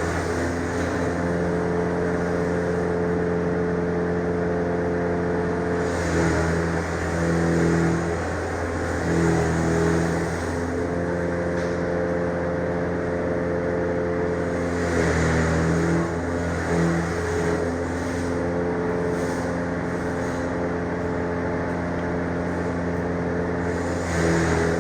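An engine running steadily, its pitch dipping and picking back up several times.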